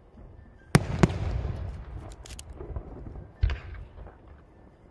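Aerial firework shells bursting: two sharp bangs close together about three-quarters of a second in, followed by a rolling echo, a few small cracks, and another bang about three and a half seconds in.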